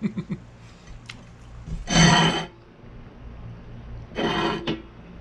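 A man making two drawn-out appreciative "mmm" sounds while tasting a grilled cheese sandwich. The first, about two seconds in, is the louder; the second comes near the end.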